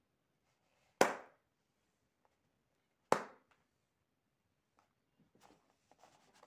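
Two sharp knocks about two seconds apart, each dying away quickly, followed by faint rustling near the end.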